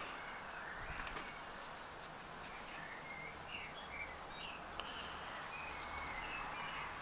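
Steady outdoor background hiss with faint, scattered bird chirps.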